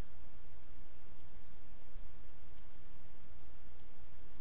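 A few faint computer mouse clicks, spaced roughly a second apart, over a steady low hum and hiss in the recording.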